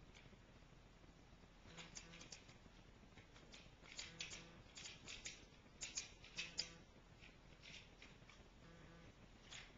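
Plastic activity triangle toy clicking and rattling faintly as a baby grabs and mouths it, in scattered clicks that cluster from about two to seven seconds in.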